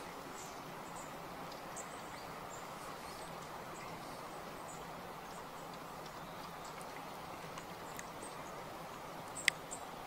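Quiet outdoor ambience: a steady faint rush with scattered faint, short, high bird chirps, and one sharp click near the end.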